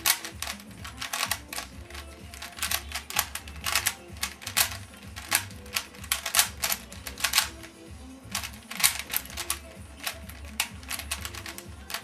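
Rapid plastic clicking and clacking of a black 3x3 speedcube being turned at speed in a timed solve: quick clusters of layer turns with brief pauses between them.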